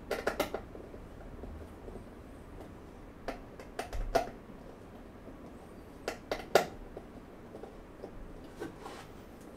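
Light clicks and knocks in short clusters of two to four, a few seconds apart, from parts of a steel-frame dresser being handled and fitted together.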